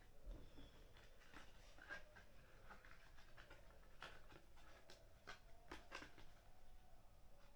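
Near silence: faint room tone with a few scattered soft clicks or taps.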